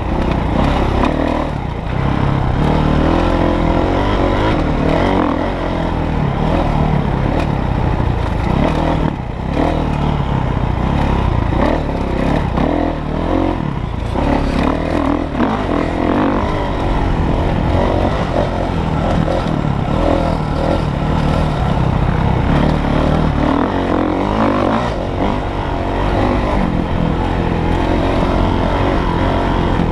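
Dirt bike engine running hard under race throttle, its revs rising and falling as the rider works the throttle over a rough dirt track.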